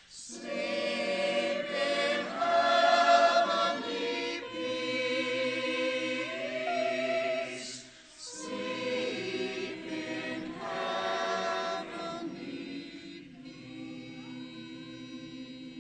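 Choir singing, pausing briefly about eight seconds in.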